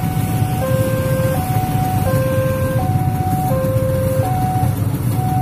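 Railway level-crossing warning alarm sounding its two-tone signal, a low note and a higher note alternating about every 0.7 s, over the low running of idling motorcycle engines.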